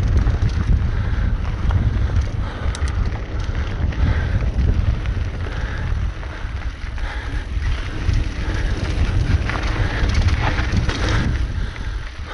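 Wind buffeting the microphone and the rumble of a mountain bike's tyres on a dirt singletrack at speed, with scattered clicks and rattles from the bike.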